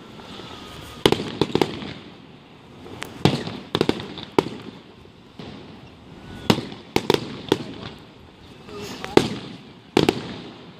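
Aerial fireworks exploding, a sharp bang or a quick cluster of several bangs every second or two, with a low rumbling echo after each.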